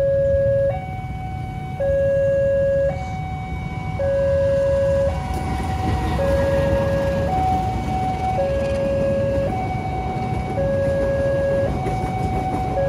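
Railway level-crossing warning alarm sounding an alternating two-tone signal, a lower and a higher tone of about a second each, repeating steadily. Under it is the low rumble of the KA Pasundan passenger train, its diesel locomotive arriving about six seconds in, followed by the coaches.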